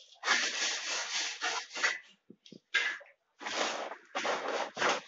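Hand tool scraping across a kitchen platform slab in a run of strokes, then, about three and a half seconds in, a cement sack rustling as it is lifted.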